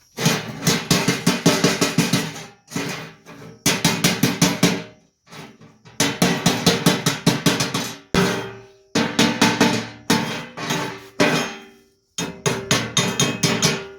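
Rapid hammering on metal in bursts of one to two seconds, about six strikes a second, with short pauses between bursts and a faint ring under the strikes.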